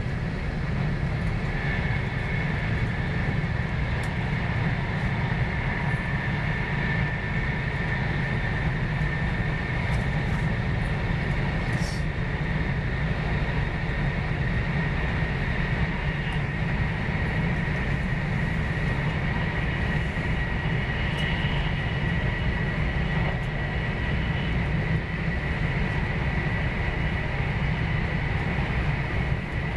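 Cabin noise inside a Joetsu Shinkansen Max Toki bullet train running at speed: a steady low rumble with a thin high whine over it, and a few faint clicks.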